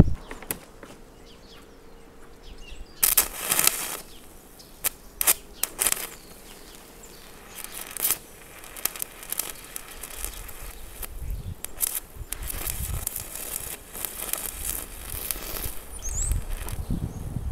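Stick-welding arc run off four car batteries in series at 48 volts, crackling as the electrode is struck against steel. At first the arc catches only in short spits, then it holds for a longer stretch of dense crackling and sputtering in the second half.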